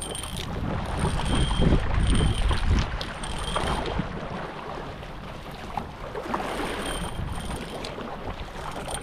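Kayak being paddled on open sea: paddle strokes and water splashing against the boat, with wind rumbling on the microphone, strongest in the first few seconds.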